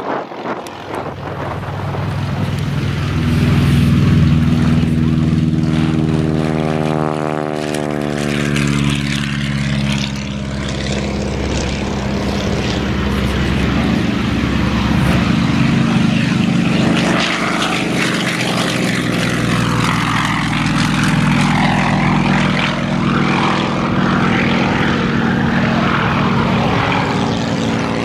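Piston engine and propeller of a light airplane running at high power on a takeoff run; its pitch slides down about seven to nine seconds in, then holds steady. The later, steady part is a Yak-52's nine-cylinder radial engine at takeoff power.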